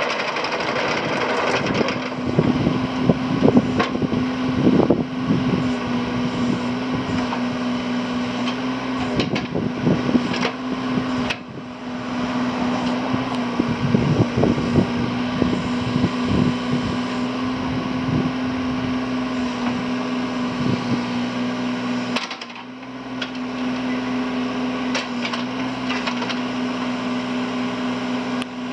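Yanmar ViO20-3 mini excavator's diesel engine running steadily as the machine travels and works its boom and bucket, with scattered clanks and rattles. The sound dips briefly twice.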